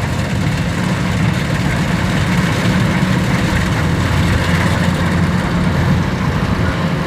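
Kubota DC-93 combine harvester's diesel engine running steadily under a constant load, with a deep, even drone.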